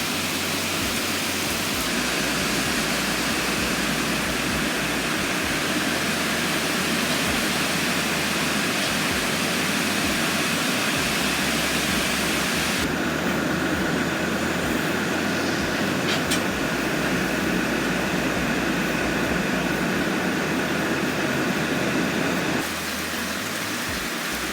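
Heavy downpour of rain, a steady loud hiss that changes abruptly in character a few times.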